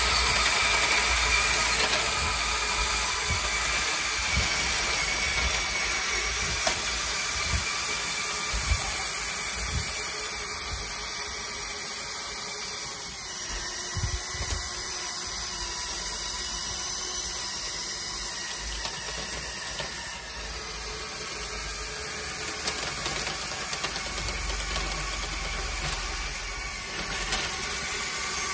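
Lego Technic tracked tank driving, its Powered Up L electric motors whirring steadily through plastic gearing while the plastic tracks click as they run.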